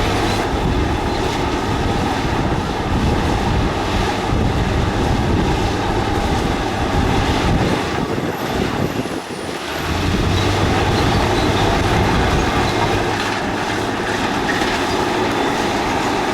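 Diesel heavy earthmoving equipment running under load, a steady engine drone with rattling and clanking. The sound dips briefly about nine seconds in, then picks up again.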